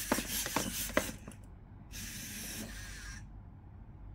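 Robosen Bumblebee robot walking forward on voice command: its servo motors whir while its plastic feet tap and scuff on the mat, with a run of quick clicks in the first second, then a shorter whir about two seconds in.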